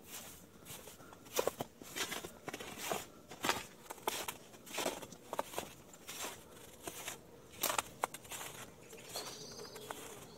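Footsteps in snow at a steady walking pace, roughly two steps a second, growing fainter near the end.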